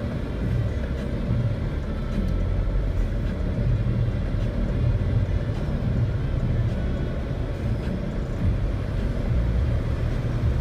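Jeep Wrangler JK driving through deep flood water: the engine running with a steady low drone under a constant wash of noise, with no change in pace.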